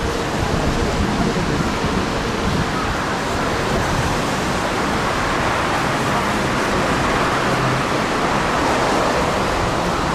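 Steady, dense roadside noise from a marathon course: the sound of passing runners and the watching crowd blending into one even wash.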